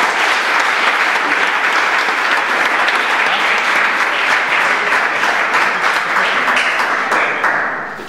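Audience applauding, a steady dense patter of many hands clapping that fades away near the end.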